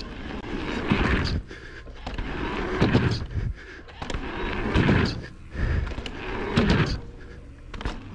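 Mountain bike ridden through a line of dirt jumps: tyre noise on packed dirt and wind rush on the camera's microphone, swelling four times about two seconds apart, with sharp knocks as the bike lands and rattles.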